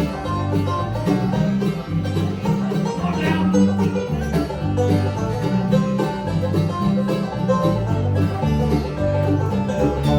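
Bluegrass band playing an instrumental break, with banjo picking over guitar and a steady bass line.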